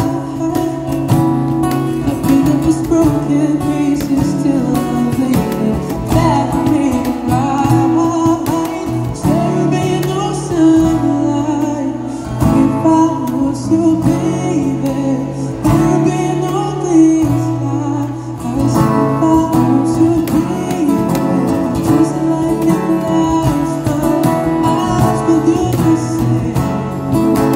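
Live acoustic guitar strummed, with a male voice singing into a microphone, both played through a portable speaker.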